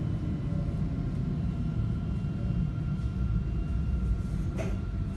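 Steady low rumble inside a tram car slowing to a stop at a station, with a faint thin tone that slides slightly down near the end and a single click about four and a half seconds in.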